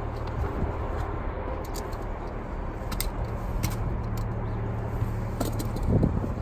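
Steady low machine hum with a few light clicks.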